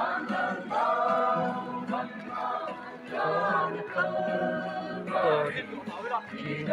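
A group of voices singing together without instruments, in held phrases of about a second each with short breaks between.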